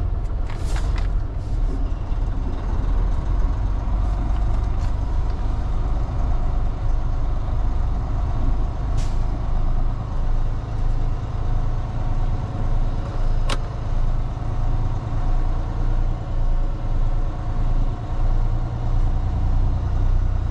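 Semi-truck tractor's diesel engine running at low speed, a steady low rumble heard inside the cab, with a brief air hiss near the start and a few sharp clicks.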